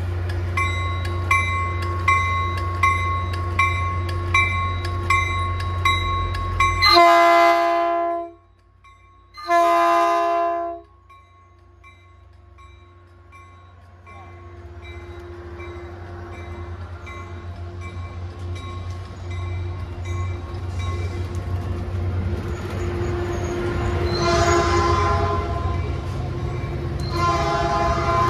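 Caltrain commuter train departing: its bell rings about twice a second over a steady diesel hum, then the horn sounds two blasts about 7 and 10 seconds in, the standard signal that the train is about to move forward. The train then pulls out, its rumble building as the bilevel cars roll past.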